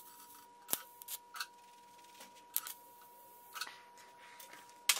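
TIG welding arc running: a steady high whine with irregular sharp ticks and crackles every second or so while filler rod is fed into the weld.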